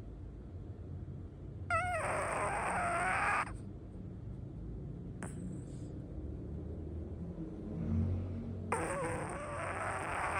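Sleeping dog snoring, with two long, wavering, high whine-like cries about seven seconds apart over a low steady rumble.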